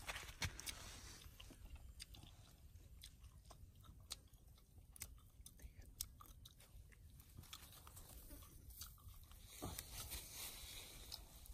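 Faint crunching and clicking of a person chewing a roasted spider, in scattered irregular bites.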